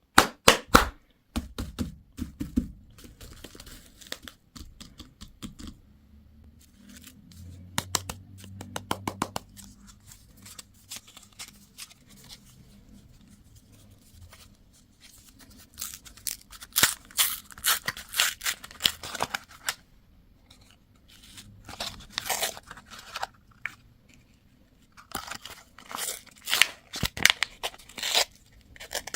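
Candy packaging being torn open and crinkled at close range, in clusters of sharp crackling with short pauses between.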